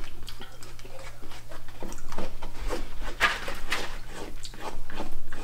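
Close-miked chewing and wet mouth sounds from a mouthful of burrito bowl: a run of short irregular smacks and clicks, with a fork scooping and scraping in the bowl.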